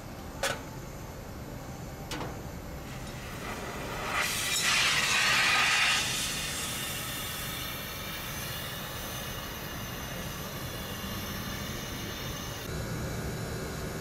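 Two sharp clicks about two seconds apart, then a loud rush of pressurised gas hissing for about two seconds that settles into a steadier, quieter hiss.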